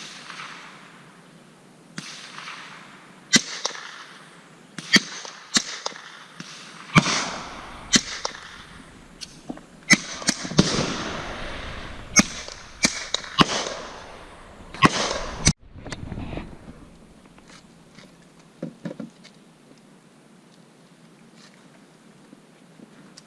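Gunshots: more than a dozen single shots, irregularly spaced roughly a second apart, each trailing a short echo. The firing stops about two-thirds of the way through, leaving only a few faint clicks.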